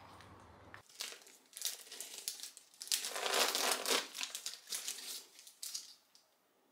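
A syringe's paper-and-plastic sterile packet being peeled open and handled: crackly crinkling and tearing, starting about a second in and loudest around the middle.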